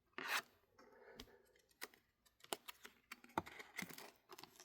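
Faint handling noise of trading cards and their packaging on a table: a short rustle at the start, then scattered light clicks and taps that bunch up near the end.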